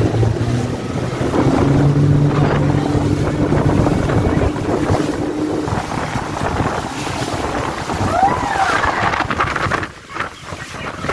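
Motorboat engine running under way, its note stepping up about a second in as the boat speeds up. It runs over the rush of churning wake and spray against the hull, with wind buffeting the microphone.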